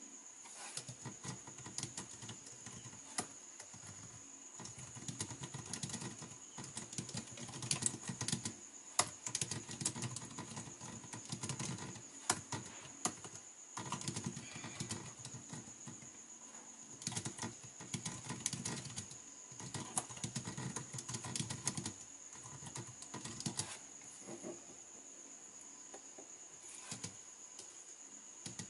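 Typing on a green BOW wireless keyboard with round keycaps: quick runs of key clicks broken by short pauses. The keyboard sits on a laptop mat, which keeps the clicking from being too loud.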